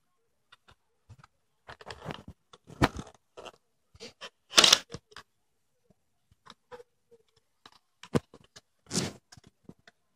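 Cardboard packaging being handled: irregular rustling, scraping and sliding of small card boxes as an action camera is worked out of its tray, with a louder scrape about halfway and another near the end.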